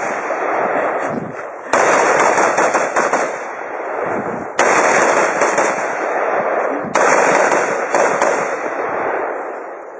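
Rifle shots during a timed match stage: a shot is still dying away at the start, then three more sharp reports come a little over two seconds apart. Each one is followed by a long loud tail that fades slowly.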